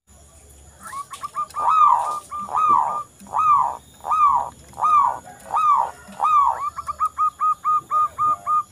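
Local zebra dove (perkutut) singing its cooing song: a few short notes, then about seven longer, falling coos less than a second apart, ending in a quick string of short, clipped notes. This is a dove in steady full song, the kind used to coax quiet perkutut into singing.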